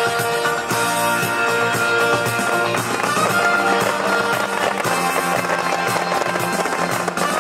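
Music playing loudly over a fireworks display, with sharp pops and crackle from ground fountains and rising comets scattered underneath.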